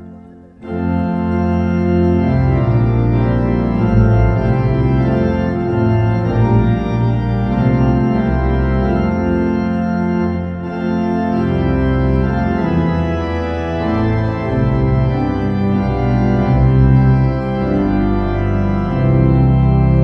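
Background music of sustained chords that change every second or so, coming back in just after a brief drop at the start.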